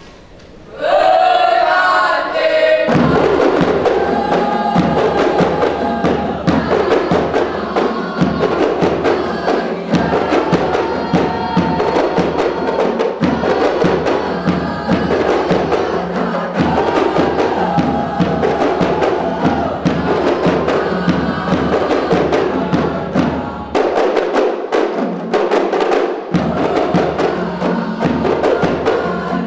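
Music with a fast, busy percussion beat of many sharp strikes. It begins with a short pitched phrase about a second in and fills out fully at about three seconds.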